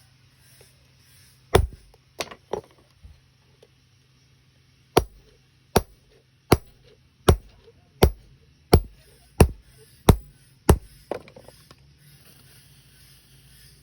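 Blacksmith's hammer striking iron tooling as an iron edge is stamped and cut. Three blows near the start, then after a pause a steady run of about nine blows, one every three-quarters of a second, tailing off into a few lighter taps.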